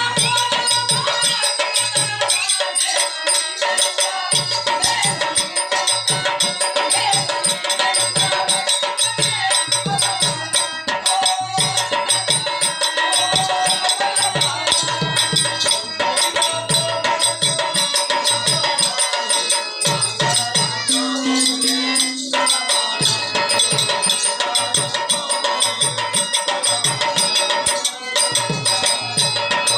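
Live folk-drama accompaniment: hand drums beaten in a steady repeating rhythm, with continuous jingling and held drone notes underneath. The drums drop out briefly a few times.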